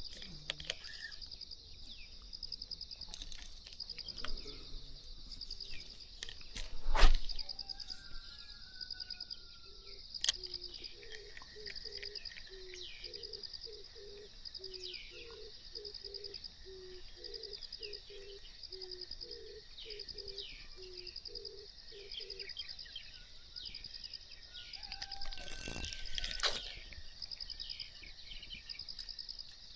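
A steady, pulsing insect trill with scattered bird chirps. A sharp knock about seven seconds in, a run of low, evenly spaced calls through the middle, and a brief louder rustle near the end.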